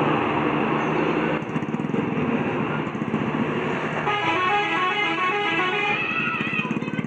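Bus telolet horn, a multi-tone musical air horn, playing a short stepping tune about four seconds in for roughly two and a half seconds. Steady vehicle noise runs underneath.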